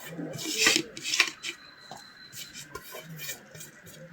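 Scraping and clinking on a dish as the dark crust is peeled off a bread roll, with one sharp click about a second in and smaller taps after.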